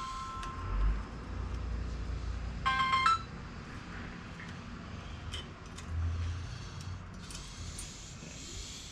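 Mobile phone ringtone: one electronic tone fades out about a second in, and a short burst of chimes comes about three seconds in, over a low rumble.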